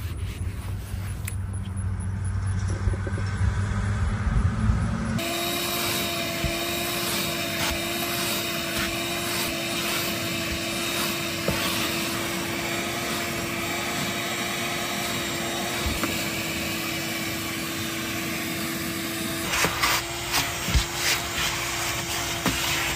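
A low rumble, then about five seconds in a sudden switch to a small motor running steadily with a constant hum and a hissing rush. There are a few knocks and clatter near the end.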